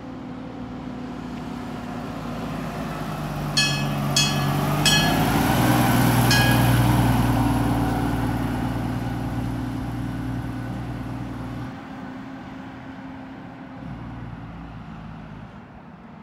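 Fire engine driving past, its diesel engine growing louder to a peak about six seconds in and then fading as it pulls away. Four short horn blasts sound between about three and a half and six and a half seconds in.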